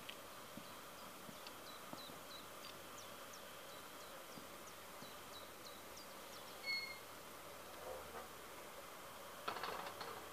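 Small birds chirping faintly, a run of short high notes, with one clearer whistled note about two-thirds in. A brief rustle comes near the end.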